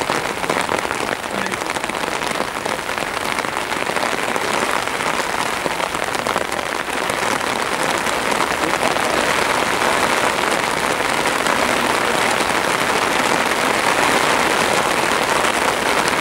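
Steady rain falling: an even hiss with no distinct drops or voices, growing a little louder about halfway through.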